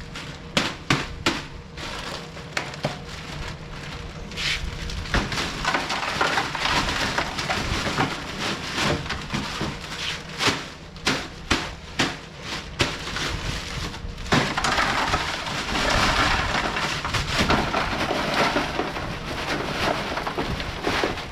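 Ice cubes clattering and crunching as a bag of ice is broken up and tipped over cooked mud crabs in a tray to chill them: sharp knocks first, then a denser, louder rattle of ice for the last several seconds.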